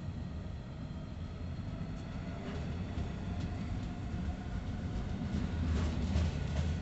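Container flat wagons of a freight train rolling past, a steady low rumble with scattered clicks of wheels over the rail joints, the clicks coming thicker about six seconds in.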